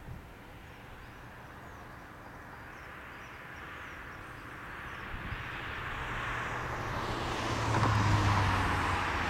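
Jet aircraft noise swelling steadily over several seconds and loudest near the end, with a steady low hum underneath.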